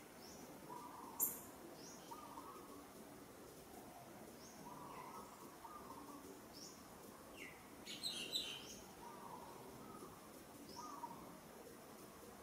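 Small birds chirping faintly: short falling chirps repeated about once a second. There is a single sharp click about a second in, and a brief flurry of chirps about eight seconds in.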